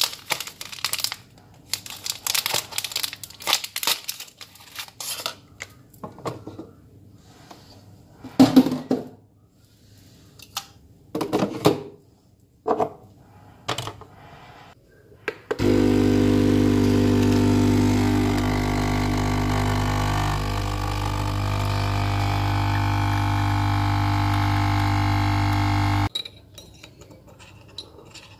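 Clicks, knocks and rustles as a capsule is handled and loaded into a capsule coffee machine. About a third of the way in the machine's pump starts, runs with a loud steady hum for about ten seconds while it brews the coffee, and then cuts off abruptly.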